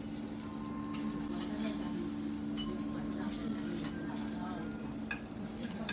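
Food sizzling on a teppanyaki iron griddle, with small clicks of utensils and a steady low hum that stops near the end.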